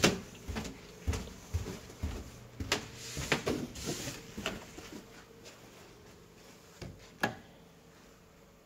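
Footsteps going down a carpeted staircase: an uneven run of soft thumps and knocks over the first few seconds, then one more knock near the end.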